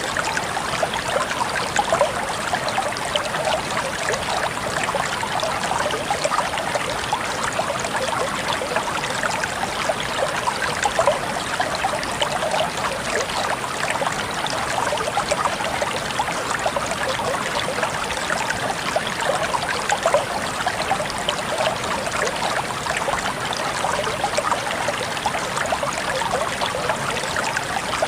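Shallow stream of water running and trickling over stones, a steady babble with many small splashes.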